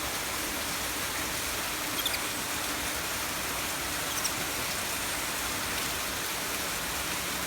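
Steady background hiss with a few faint, short, high chirps about two and four seconds in.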